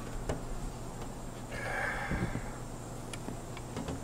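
Handling noises as a rubber roof flange and a caulking gun are picked up and moved: a few light clicks and soft knocks, with a short rustling hiss about a second and a half in. A steady low hum sits underneath.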